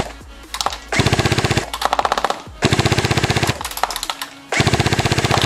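Tokyo Marui P90+ electric airsoft gun firing full-auto bursts, a fast even rattle of the gearbox cycling. There are three bursts, each under a second long, with short pauses between them, and the last one runs on past the end.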